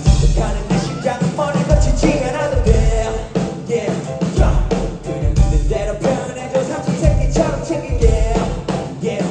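Live rock band playing with a singer: drum kit with a steady beat, electric guitar and bass guitar, and lead vocals over them.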